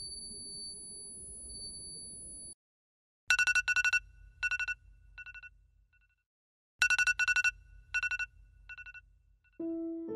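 Smartphone ringing with a rapid trilling ringtone like an old telephone bell: two rings about three and a half seconds apart, each trailing off in fainter, fading repeats. Before the rings, a steady electronic hum with a high whine cuts off about two and a half seconds in.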